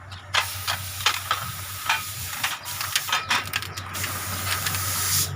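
A loud, steady hiss like a jet of air or spray, starting about half a second in and cutting off suddenly near the end, with several sharp clicks and a steady low hum underneath.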